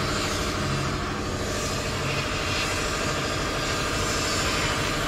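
Sandblast gun firing inside a homemade plastic-box blast cabinet: a steady hiss of air and grit. Underneath it is a steady low motor drone.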